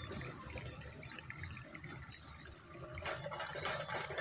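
Faint gurgling and sloshing of shallow rice-paddy water and mud at an eel hole where a baited line is set, turning into quick crackling splashes in the last second.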